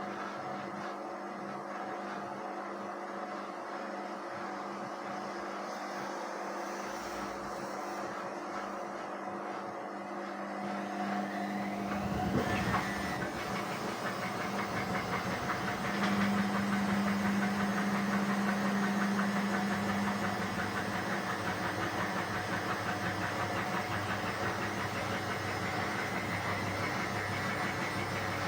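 Indesit WISN 101 washing machine running its rinse cycle: a steady machine hum, which grows louder after a click about halfway through as the drum motor starts turning, with a strong steady tone for a few seconds after.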